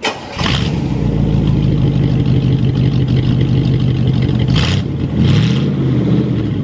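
1966 Oldsmobile Toronado's 425 cubic-inch V8 running at idle, with a quick rev about five seconds in.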